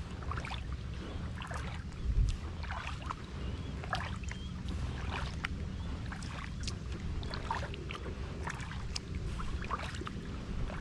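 Kayak paddle strokes: the blades dip and splash, and water drips off them about once a second, over a steady low rumble. There is one louder low thump about two seconds in.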